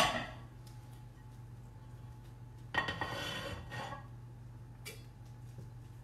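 Dishware clattering: a sharp knock at the start, then a dinner plate set down and shifted on the kitchen counter for about a second, about three seconds in, and a light click near the end, over a steady low hum.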